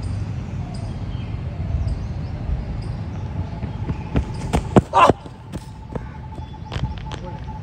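A quick series of sharp taps and knocks, closely spaced around four to five seconds in, the loudest a denser knock at about five seconds, then a few scattered clicks, over a low steady rumble.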